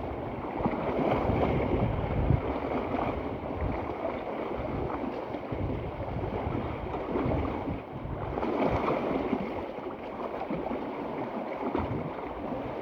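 Wind gusting on the microphone over the wash of waves, an uneven rumbling rush that swells and eases every second or two.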